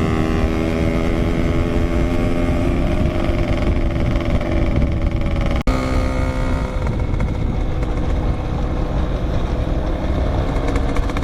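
Yamaha RX-King's single-cylinder two-stroke engine running under way, its pitch easing slightly, then shifting after a brief break about halfway through, over steady wind noise.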